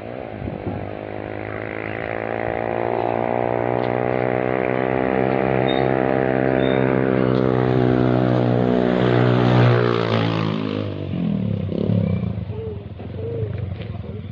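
A motor vehicle engine running at a steady pitch, growing louder over several seconds and then dropping away about eleven seconds in, with voices calling out near the end.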